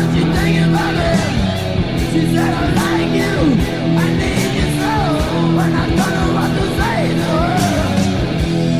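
Heavy metal band recording playing: a bending, wavering lead line over distorted electric guitars, bass and drums with steadily struck cymbals.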